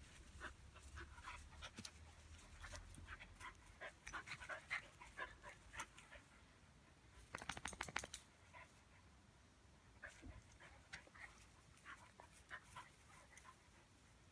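A Romanian shepherd dog and a small dog play-fighting on grass: faint panting and rustling and scuffing of paws in the grass, with a quick flurry of soft scuffs about seven seconds in.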